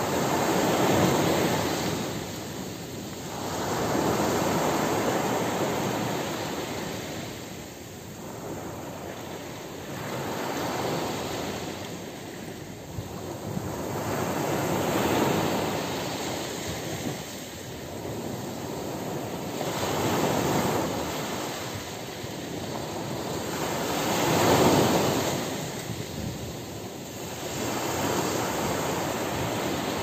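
Small sea waves breaking and washing up a sandy beach, the surf swelling and falling back about every four to five seconds.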